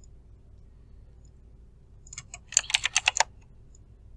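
Computer keyboard keystrokes, copy-and-paste shortcuts: a few scattered clicks a little past halfway, then a quick run of about eight taps. A faint steady hum lies underneath.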